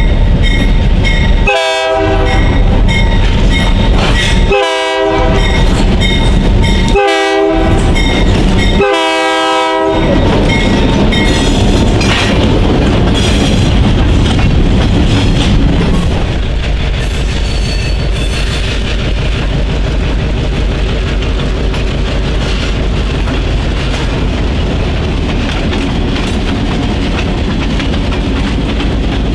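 Diesel locomotive horn sounding four blasts in the first ten seconds, the last one the longest, over the steady rumble of a freight train rolling past with wheels clacking over the rail joints.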